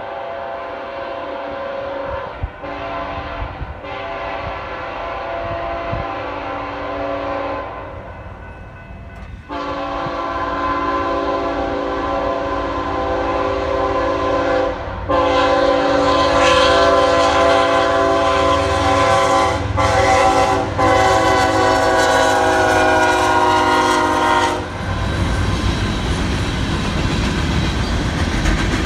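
BNSF coal train's locomotive air horn sounding several long blasts, a chord of several tones, growing louder as the train approaches. About 25 seconds in the horn stops and the rumble and clatter of coal hopper cars rolling past takes over.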